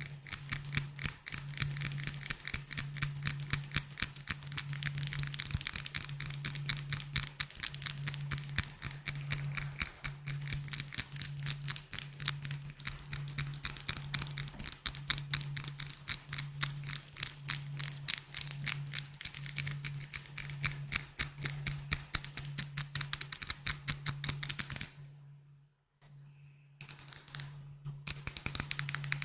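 Fast, continuous tapping on glass bottles: crisp, dense clicks, many per second. The tapping stops briefly about 25 seconds in, then comes back sparsely before picking up again.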